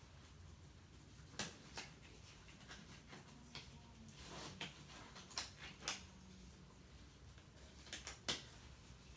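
Faint room tone with several light clicks and knocks scattered through it, like small objects or furniture being handled.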